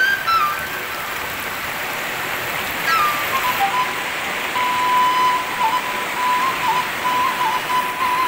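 Flowing river water, a steady hiss, under background music: a single melody line slides down near the start, then holds one long note with small wavers.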